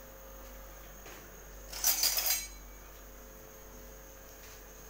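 Sautéing at the stove: a short, loud burst of clatter and hiss about two seconds in as tomatoes go into the pan, over a steady low electrical hum.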